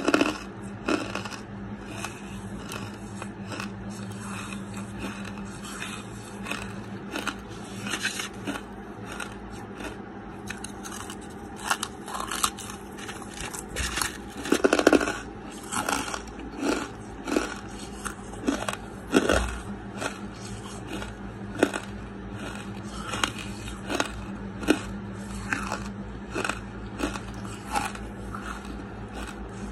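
Lump charcoal being bitten and chewed: a dense string of sharp, crisp crunches, loudest about halfway through, over a low steady hum.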